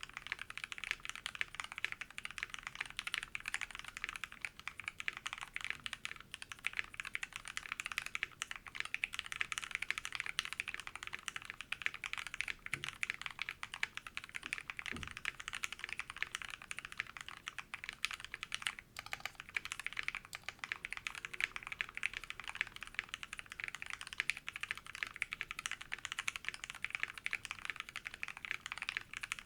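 Continuous fast typing on a mechanical keyboard fitted with lubed and filmed Gateron Hippo linear switches and PBT keycaps on a brass plate: a dense run of keystrokes, described as thocky and consistent-sounding.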